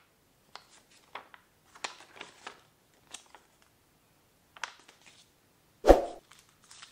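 Folded paper leaflet rustling and crackling in short, scattered rustles as it is unfolded and turned over by hand. Near the end comes one louder thump with a crinkle as the phone in its protective sleeve is handled.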